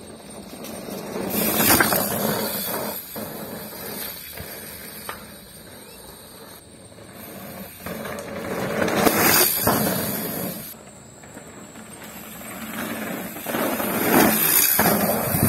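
Mountain bikes passing close by on a dirt singletrack, one after another: a rush of tyres on loose dirt that swells and fades three times, loudest about two, nine and fourteen seconds in.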